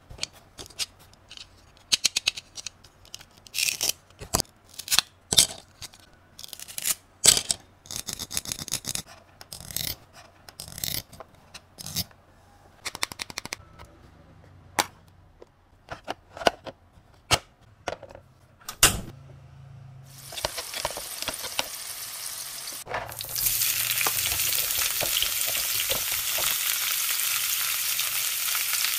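Sharp plastic clicks and taps from handling toy miniature kitchen pieces, then a faint hiss that becomes a loud, steady frying sizzle about 23 seconds in.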